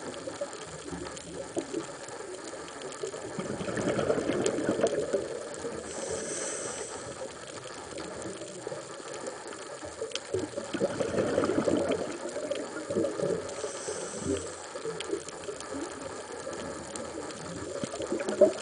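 Scuba diver breathing through a regulator underwater: two gurgling rushes of exhaled bubbles a few seconds apart, each followed by a short hiss of inhalation, over a steady crackle of fine clicks in the water.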